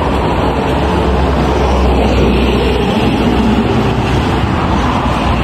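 Steady road-vehicle noise while travelling: a continuous deep rumble with road hiss, unbroken throughout.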